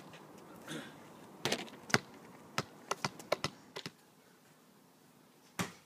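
Irregular light knocks and taps, a small ball and a plastic toy basketball hoop being handled, stopping about four seconds in; a single thump near the end.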